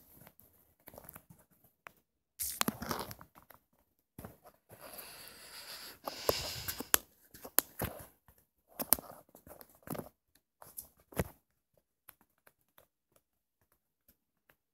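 Irregular rustling, crinkling and scraping noises with a few sharp clicks, stopping about eleven seconds in.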